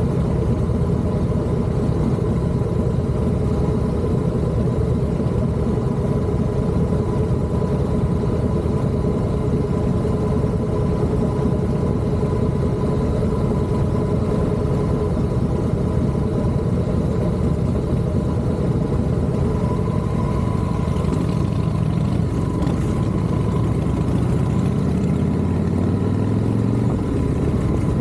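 Vehicle engine and road noise running steadily, with an engine's pitch rising near the end as it speeds up.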